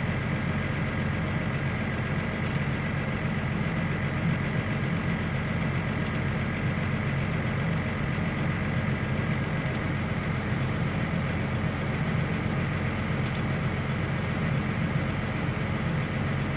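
Vehicle engine running at an even, unchanging speed: a steady low hum with a thin steady whine above it.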